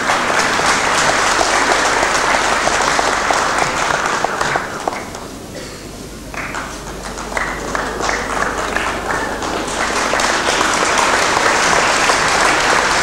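Audience applauding in a large hall. The clapping thins to scattered claps about halfway through, then builds back to full applause.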